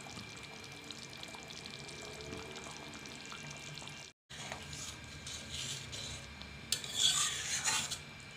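Fish curry simmering in a metal kadai, then, after a brief cut about four seconds in, a metal spatula stirring and scraping through the curry against the pan, loudest near the end.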